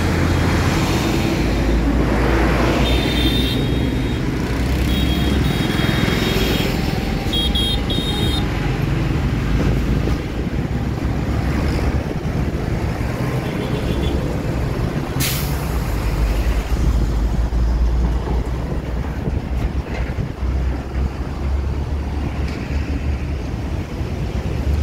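Highway traffic passing close by, trucks and motorbikes, with a steady deep rumble. A few short high-pitched tones sound in the first eight seconds, and a brief sharp hiss about fifteen seconds in.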